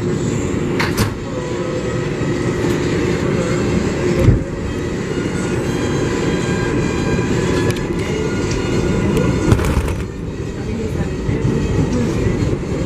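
R188 subway car running on the 7 line between stations, heard from inside the car: a steady rumble of wheels on rail with a faint motor whine, and a few sharp clicks at rail joints.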